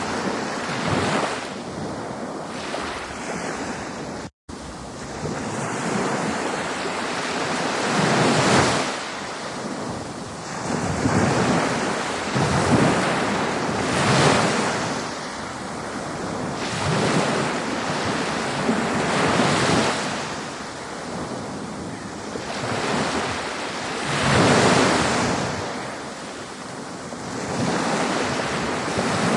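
Ocean surf, waves breaking and washing in, swelling and fading every few seconds, with a momentary dropout about four seconds in.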